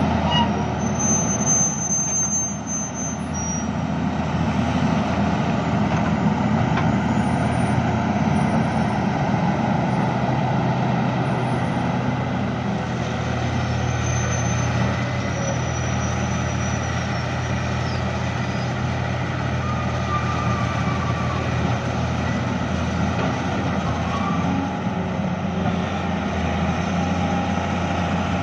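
Heavy diesel engine of road-clearing equipment running steadily, with faint high whines now and then.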